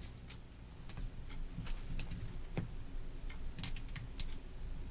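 Light, irregular clicks and taps from handling a freshly cut strip of surface-mount component carrier tape, about eight small ticks scattered over a few seconds over a low hum.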